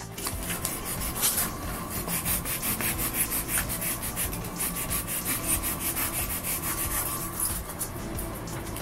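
A knife blade cutting and scraping a styrofoam disc to bevel its edge, in quick repeated strokes, several a second.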